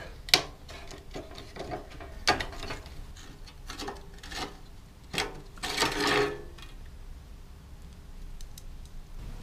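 Rusted steel bumper pieces handled on a concrete floor: a series of sharp knocks and clinks of metal, with one longer metal scrape a little past halfway through.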